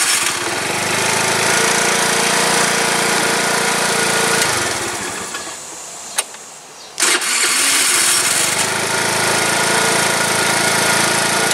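Scooter's electric starter cranking the engine in two long spells of about four to five seconds each, with a pause and a click between them: the starter button, its contacts just cleaned with sandpaper, now makes contact.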